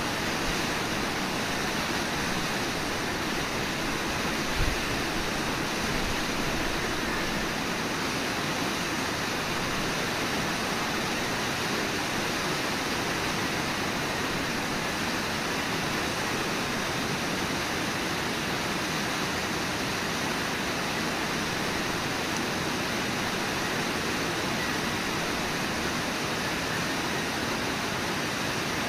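Steady rush of a river's rapids and waterfall, an even roar of water. A brief low thump about four and a half seconds in.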